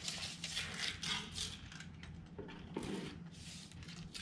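A series of short, irregular scraping and rattling noises from hands and tools working at a flagstone set in wet mortar, including a tape measure being drawn out across the stone.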